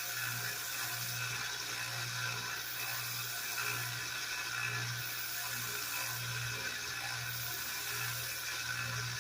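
1x30 belt sander running with a 5,000-grit belt: a steady high belt hiss over a low motor hum that swells and fades about once a second, as the pencil sharpener's cutter barrel is held rolling against the belt to hone it.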